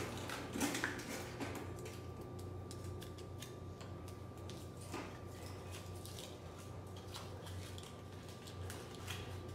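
Scattered small clicks and rustles of hands handling small plastic items and a backpack, loudest about a second in, over a steady low hum with a faint high whine.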